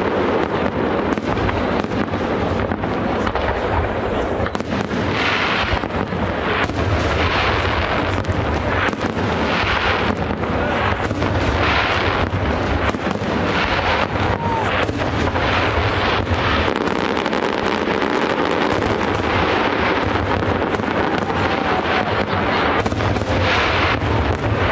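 Fireworks finale: a dense, unbroken barrage of aerial shell bursts, bang after bang overlapping over a continuous low rumble, as the display's closing salvo goes off.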